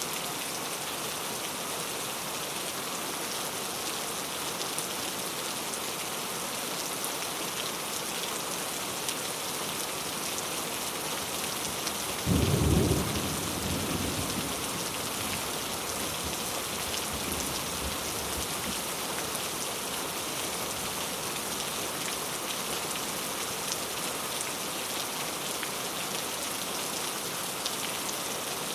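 Heavy rain falling steadily, with one thunderclap about twelve seconds in that rumbles away over several seconds.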